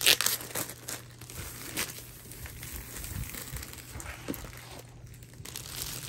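Plastic shrink wrap crinkling and tearing as it is pulled off a rolled canvas. The loudest sharp crackle comes right at the start, followed by a few smaller crackles and then softer rustling.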